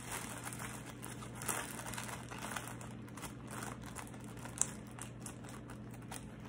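Plastic zipper storage bags crinkling and rustling in irregular handfuls as a bag of marinating meat is worked into a second bag for double-bagging, with one sharp click about four and a half seconds in.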